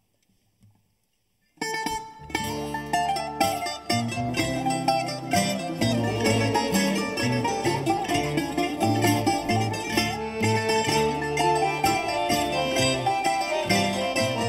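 A rebetiko ensemble led by bouzoukis starts playing about a second and a half in, an instrumental introduction with guitar, double bass and accordion underneath. The plucked strings set a quick, steady rhythm over the bass notes.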